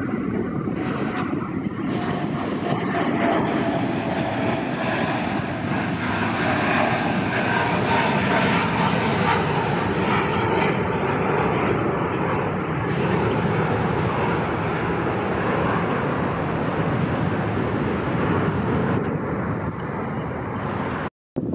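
Boeing 787 Dreamliner's GEnx turbofan engines at climb power just after takeoff: a steady jet roar with a faint whine falling in pitch over the first few seconds. The sound cuts out briefly near the end.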